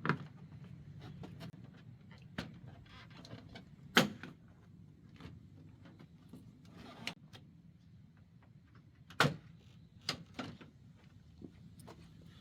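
Factory plastic grille on a 2019–2022 Chevrolet Silverado being pried off, its retaining clips popping loose with sharp snaps and knocks. The loudest snaps come about four and nine seconds in, with smaller clicks between.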